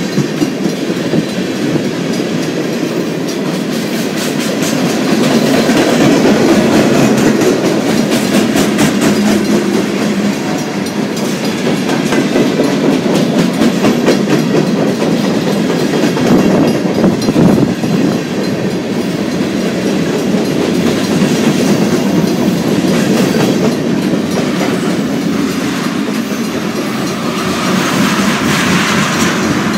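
Freight train tank cars rolling past close by: a steady rumble of the cars with wheels clattering over the rail joints.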